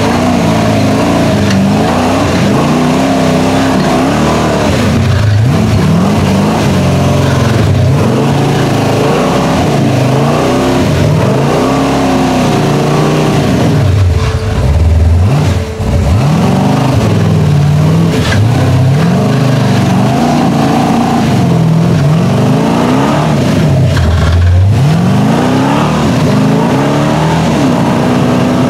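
Big-block V8 engine of a rock-crawling truck on 47-inch tires revving up and down again and again under load as it climbs a rocky ledge, with a couple of brief drops in the middle.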